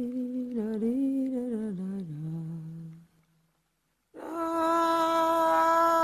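A person humming a short melodic phrase that wavers and falls in pitch, stopping about three seconds in. After a second of silence, a single steady musical note starts and is held.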